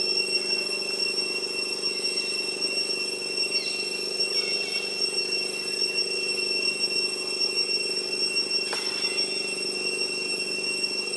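A steady high-pitched whine over a low buzzing drone, unchanging throughout, with a few faint chirps in the middle and a single sharp click near the end.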